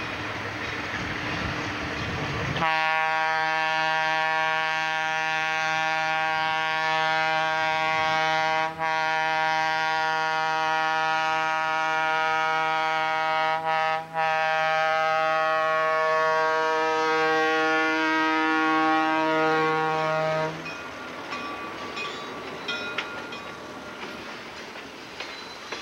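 Diesel locomotive air horn blowing one long steady blast as the train approaches a grade crossing. The horn comes in about two and a half seconds in and cuts off after roughly eighteen seconds. Freight cars then roll past with light clicking of wheels over the rail joints.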